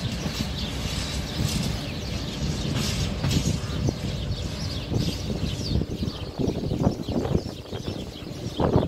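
Freight train's open wagons rolling past on the track, wheels clattering over the rails with irregular knocks and clanks.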